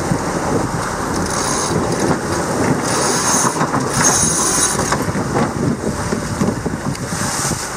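Wind buffeting the microphone over a steady rush of water along the hull of a yacht under way, a continuous rumbling hiss that swells and eases.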